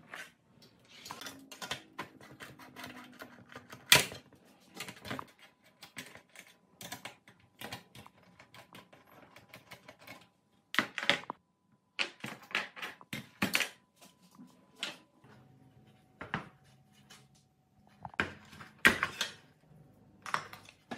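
Irregular clicks, taps and clinks of tools and small metal parts being handled at a workbench during an amplifier restoration, with one sharp knock about four seconds in.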